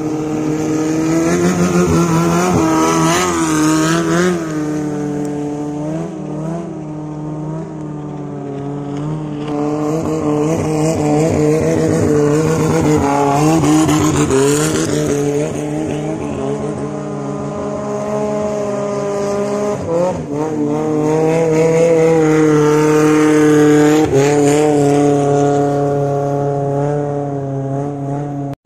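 Long-tail boat engines running flat out as three boats pass in turn. The engine note swells and bends as each one goes by, loudest about three, fourteen and twenty-four seconds in.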